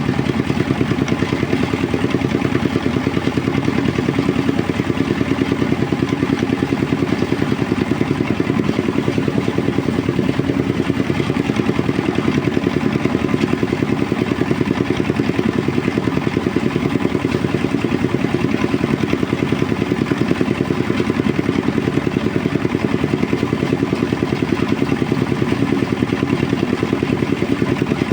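Engine-driven rice threshing machine running steadily with a fast, even chug that holds without change.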